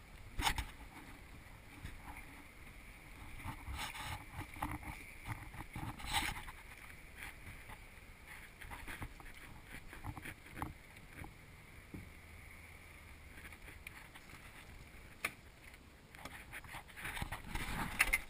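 Scattered knocks and scrapes as a sea kayak with the camera mounted on it is moved about on the shore, over a faint steady hiss. The knocks are loudest near the end.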